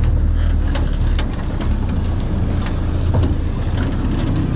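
Toyota Hilux LN106 diesel engine pulling steadily under load in low speed while towing a car on a strap, a low drone with scattered knocks and rattles as the pickup and its bed jolt over rough ground.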